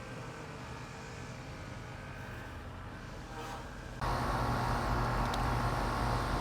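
Steady mechanical hum with a low droning tone that gets abruptly louder about four seconds in.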